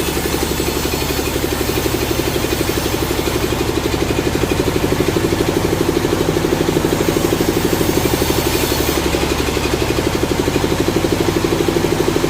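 Sawmill engine running steadily with a fast, even pulse, a little louder from about four seconds in.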